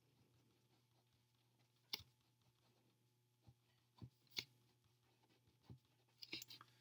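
Near silence with a faint low hum, broken by a handful of faint taps and scratches of a marker writing on paper, the clearest about two seconds in.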